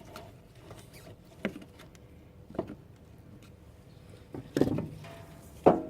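A few separate clicks and knocks from hand tools working a fuel-hose clip off the fuel filter, the loudest near the end.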